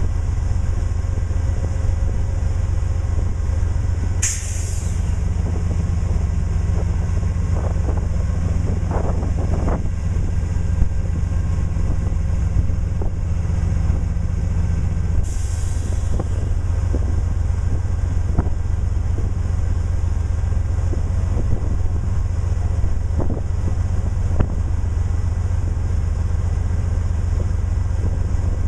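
Amtrak GE P42DC diesel locomotive running steadily with the train standing, a continuous low rumble. Two sharp hisses of air from the brakes break in, about four seconds in and again about fifteen seconds in.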